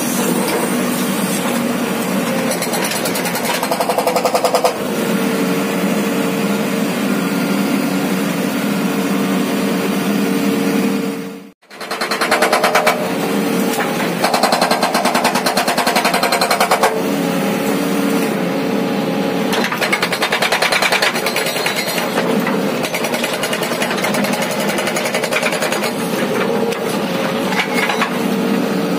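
Hydraulic rock breaker on a JCB 3DX backhoe loader hammering rock in rapid blows, with the machine's diesel engine running steadily under load, heard from the operator's cab. The hammering comes and goes in stretches as the chisel is repositioned. The sound drops out briefly for a moment about twelve seconds in.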